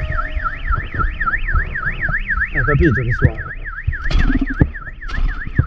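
Anti-theft alarm siren wailing, its pitch sweeping up and down about four times a second without a break.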